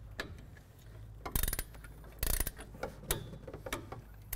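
Ratchet head of a torque wrench clicking in two short runs of rapid clicks a little under a second apart, with a few single clicks around them, as the brake caliper pin bolts are tightened to 24 foot-pounds.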